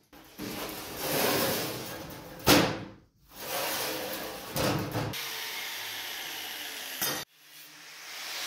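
Sheet metal being worked with hand tools, heard as rubbing and scraping noise with a sharp knock about two and a half seconds in. It comes as several short clips that cut off abruptly.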